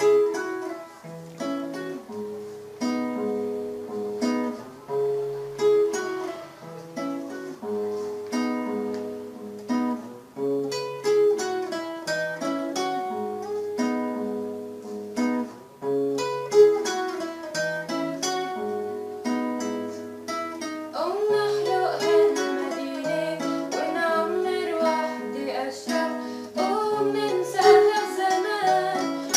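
Instrumental song intro on plucked strings: picked melody notes over a stepping bass line. About two-thirds of the way through, a wavering melody line joins in and the music grows fuller.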